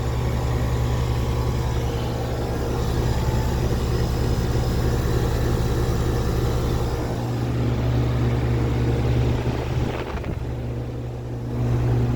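1999 Rheem Classic 3.5-ton heat pump outdoor unit running in heat mode: a steady compressor hum under the outdoor fan's airflow noise. The sound dips for a moment about ten seconds in, then returns to full.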